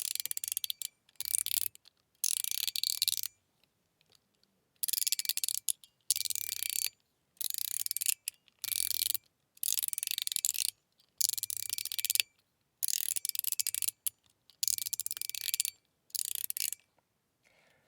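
Mechanical fidget slider being slid back and forth, each stroke a quick run of detent clicks, about a dozen runs in a row. The clicks are a little deep.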